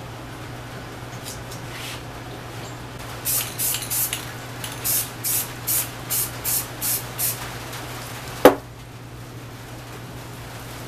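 Aerosol spray paint can sprayed in a string of short hissing bursts, about two or three a second, then a single sharp knock. A steady low hum runs underneath.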